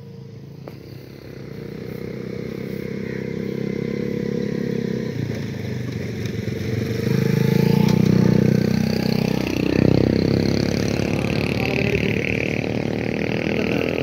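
A motor vehicle's engine passing close by, steady and pitched. It grows louder over the first several seconds, is loudest around eight to ten seconds in as its pitch shifts, then eases off.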